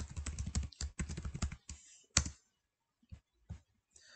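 Typing on a computer keyboard: a quick run of keystrokes over the first couple of seconds, then a few single clicks spaced out.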